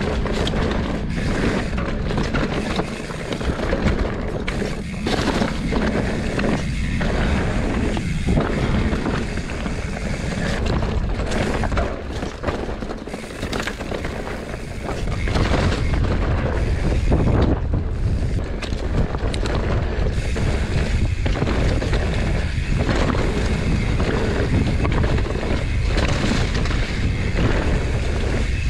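Mountain bike riding down a dirt singletrack: wind buffeting the camera microphone with a steady low rumble, over tyre noise and knocks and rattles as the bike runs over bumps.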